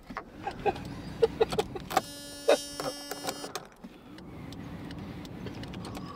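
Faulty electrics in a 1997 Ford Galaxy: a steady electrical hum and a string of clicks as the dashboard switches are worked. From about two thirds of the way in, a small electric motor runs, rising and falling in pitch, as the windscreen wipers come on by themselves.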